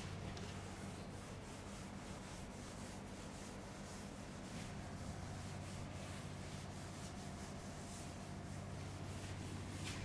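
Chalkboard duster rubbing chalk off a chalkboard in faint, repeated wiping strokes, over a steady low hum.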